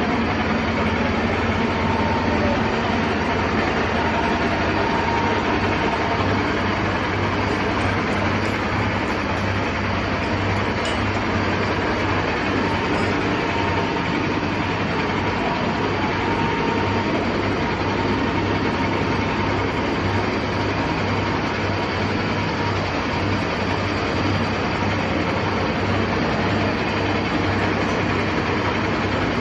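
Heavy engine running steadily at an even speed, with a low throbbing pulse.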